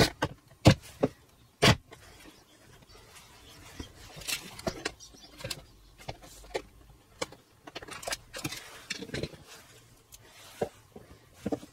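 Three sharp clicks in the first two seconds as a cordless drill driver is worked on the screws of a plastic wall-mounted USB charger. After that come faint handling noises and light tool clicks, including from a tape measure.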